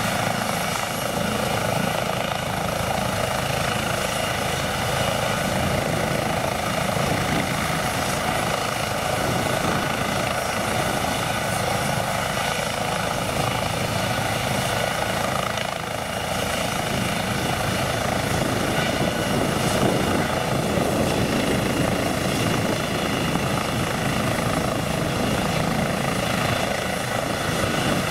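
Eurocopter EC135 helicopter running on the ground: its twin turbine engines give a steady whine of several high tones over a dense rumble of rotor and engine noise.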